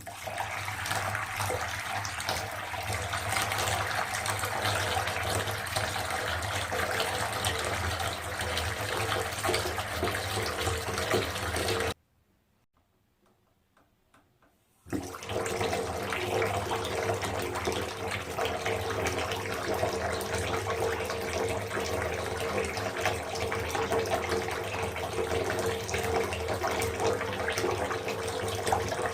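Water running steadily from a tap into a bathtub. It cuts off suddenly about twelve seconds in, leaving near silence for about three seconds, then runs again.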